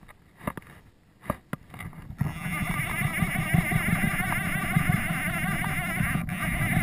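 A few soft taps as fly line is handled, then about two seconds in a loud, scratchy rubbing starts and keeps going: the angler's sleeve and arm rubbing directly against the camera and its microphone.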